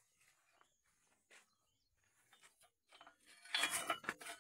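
A few faint clicks, then about three seconds in a short burst of sharp clicking and clattering with a faint ring.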